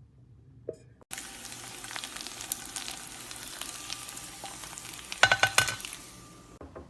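Food frying and sizzling in a ceramic nonstick pan, starting suddenly about a second in and stopping abruptly near the end. A quick clatter of a utensil stirring against the pan a little past five seconds is the loudest part.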